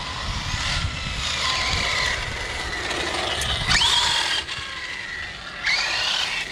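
Arrma Outcast 6S brushless RC car running, its motor whine rising and falling with the throttle and sweeping up sharply about four seconds in. The drivetrain sounds crunchy, which the driver takes for a center differential that needs replacing.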